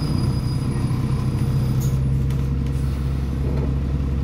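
Bus diesel engine running at idle, heard inside the passenger saloon as a steady low hum that holds one pitch.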